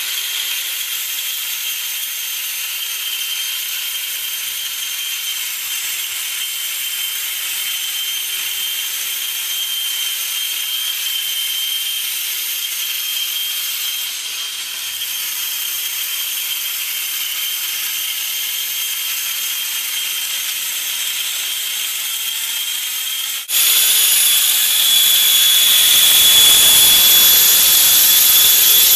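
Electric suction fan of a homemade wall-climbing RC car, running with a steady high-pitched whine as it holds the car against the wall. About 23 seconds in, the whine jumps abruptly louder and fuller.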